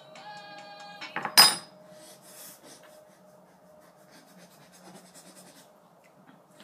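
Metal teaspoons clinking against ceramic mugs and the tabletop: a ringing tone over the first second, one sharp clink about a second and a half in, then only faint handling sounds.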